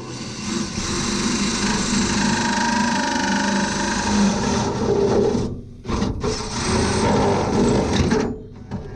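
Electric drill running in long bursts, with a short stop about five and a half seconds in and another near the end.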